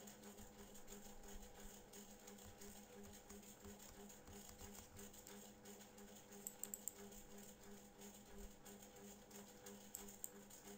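Near silence: a faint steady hum, with a few small clicks about two thirds of the way in and again near the end.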